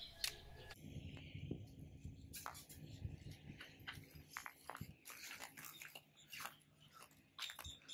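Faint, irregular crunching and clicking of footsteps on gravelly dirt.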